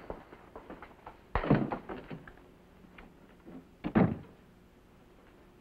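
A door being opened and shut, with a loud sound about one and a half seconds in and a bang about four seconds in, and fainter knocks between.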